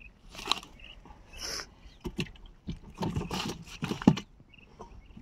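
Irregular knocks, scrapes and water splashes from a small boat as fish traps are handled on a pond. The loudest knock comes about four seconds in.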